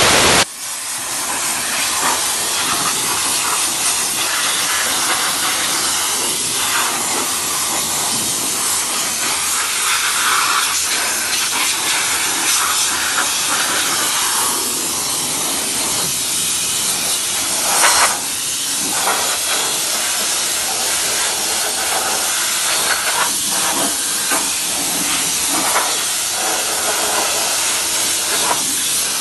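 Steam cleaner nozzle jetting steam over a car's engine bay: a continuous loud hiss that wavers as the nozzle moves, with a brief louder surge about two-thirds of the way through.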